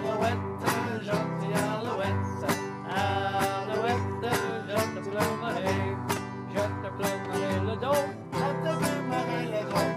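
Two acoustic guitars playing a tune together, a steady run of plucked notes.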